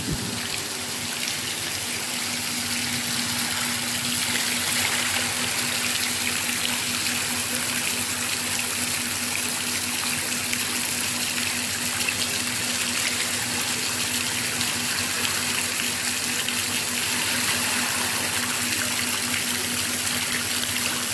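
Water cascading down a stone wall fountain and splashing into the trough at its foot: a steady rushing splash that grows a little louder about four seconds in. A faint steady low hum runs beneath it.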